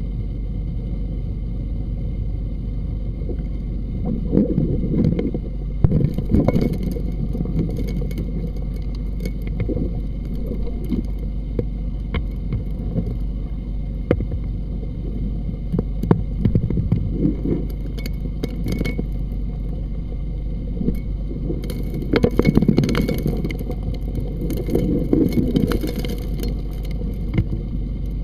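Gold dredge suction nozzle heard underwater: a steady low drone from the dredge's engine and pump carried through the water, with gravel and stones clacking and rattling as they are sucked into the nozzle. The rattling comes in heavier spells about four seconds in and again after about twenty-two seconds.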